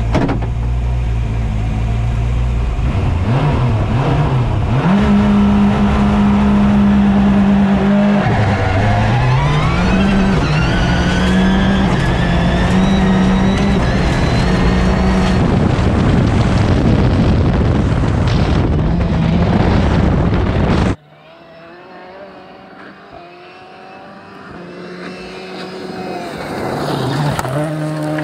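Ford Escort Cosworth rally car heard from inside the cockpit at full throttle on gravel. The engine revs climb and drop at each gear change over a constant rumble of gravel under the tyres. About 21 seconds in it cuts abruptly to the car heard from outside, fainter at first and growing louder as it approaches.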